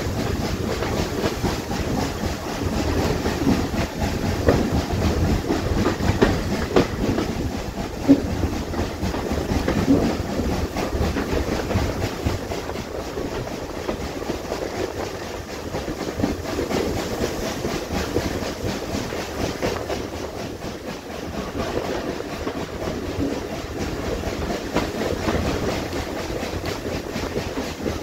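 Passenger carriages of a steam-hauled train running along the track, heard from an open carriage window: a steady running rumble with the wheels clicking on the rails.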